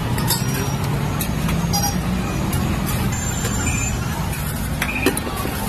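Steady low rumble of street traffic with scattered small clicks, and one sharp knock about five seconds in.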